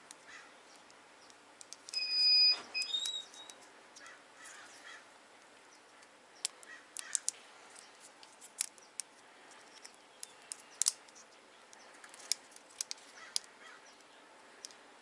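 Plastic wiring-harness loom and trim pieces being pried and pushed apart by hand. There is a short, louder clatter with a high squeak about two seconds in, then scattered sharp clicks and snaps.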